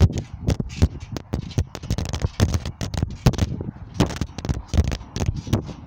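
A smartphone lying on a trampoline mat being bounced as someone jumps around it: a fast, irregular run of thumps and knocks as feet land on the mat and the phone is thrown up and smacks back down.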